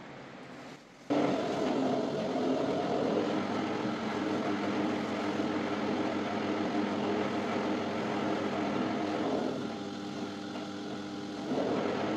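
Electric dough sheeter starting up about a second in, its motor and steel rollers running steadily with a hum while a dough ball is rolled into a thin sheet. The sound drops a little for a couple of seconds near the end, then picks up again.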